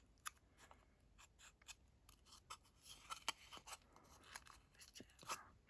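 Near silence, with faint scattered clicks and a soft rustle of a small handmade paper-and-ribbon craft piece being handled.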